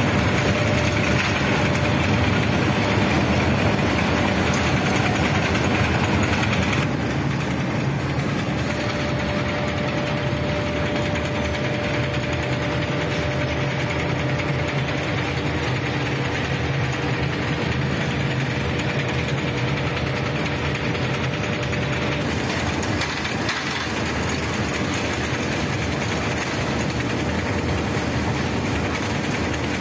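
Glass bangle-making machine running steadily: its motor-driven shafts, pulleys and gears turning, a dense mechanical noise with a faint steady hum, a little quieter from about seven seconds in.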